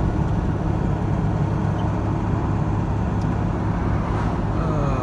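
Steady drone of a vehicle driving at road speed: low engine hum with tyre and road noise. A few short falling tones sound near the end.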